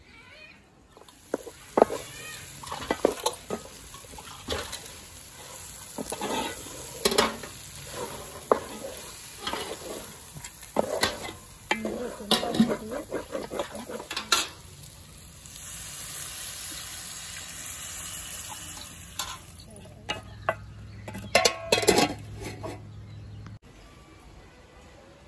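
Spiced chicken feet being stirred and tossed in a large metal pot, with irregular knocks and scrapes against the metal. Past the middle comes a few seconds of steady sizzling, then another burst of knocks.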